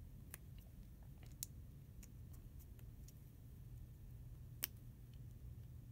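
A few light, sharp plastic clicks and taps as snap-together building-kit beams and connector pins are handled and pushed into place, over a faint low hum. The sharpest click comes about three quarters of the way through.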